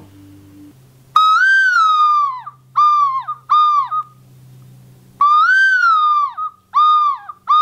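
Imitated mourning dove call, higher-pitched than a real dove: a long coo that rises and falls, followed by two short coos, given twice.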